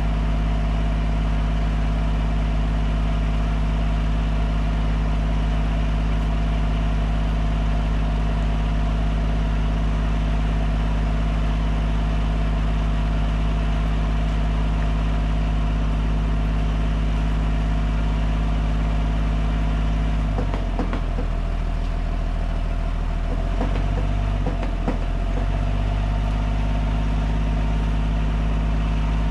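An engine idling steadily. About twenty seconds in, its note shifts and wavers for a few seconds with a few light knocks, then settles back.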